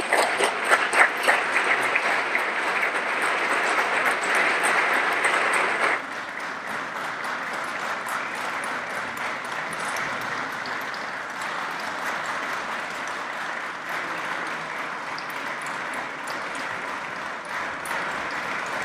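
Sustained applause from a chamber full of people, many hands clapping at once. It drops a little in level about six seconds in and carries on steadily.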